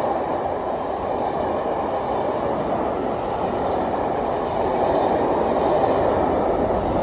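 Railtour train's coaches rolling past, a steady rumble of wheels on rails that grows a little louder in the second half.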